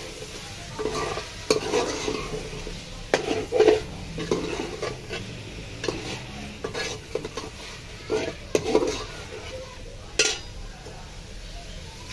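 Steel ladle stirring and scraping chicken and potato pieces around an aluminium pot over sizzling masala, in repeated strokes with sharp clinks of metal on metal.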